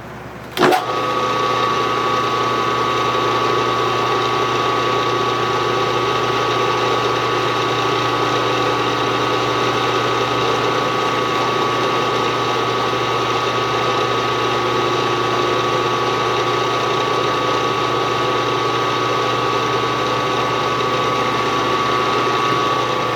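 Milling machine switched on with a click under a second in, its spindle motor and gears running steadily with a high whine while a reamer finishes a drilled hole. It shuts off at the end.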